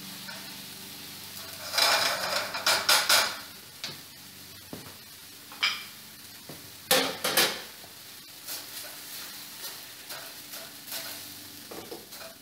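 Spatula stirring quinoa in gravy in a frying pan, with short bursts of clattering pans and utensils about two seconds in and again about seven seconds in, over a low steady hum.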